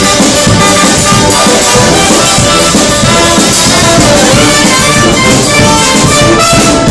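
Marching band playing loudly: brass, with a sousaphone and trumpets, over drums.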